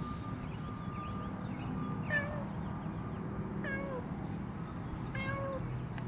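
Domestic tabby cat meowing three times, short calls about a second and a half apart, the middle one falling in pitch.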